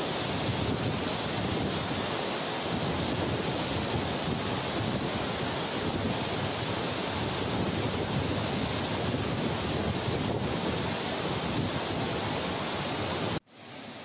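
Steady rush of whitewater tumbling over the rocks of a stream below a waterfall. It cuts off abruptly near the end, and a quieter rush of water follows.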